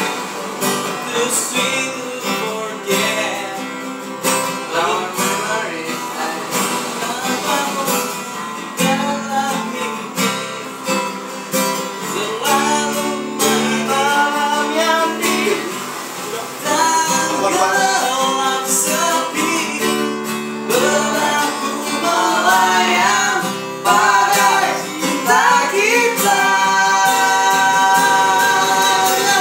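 Steel-string acoustic guitar strummed as accompaniment, with voices singing along; the singing grows louder and fuller past the middle.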